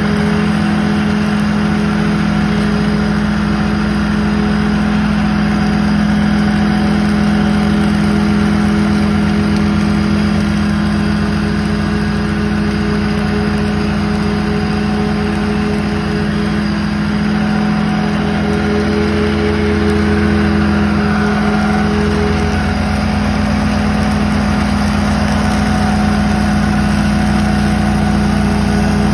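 Walker MTGHS riding mower's Kohler engine running steadily at mowing speed, with the cutting deck and grass-handling system picking up leaves and grass. A low hum swells briefly about two-thirds of the way through.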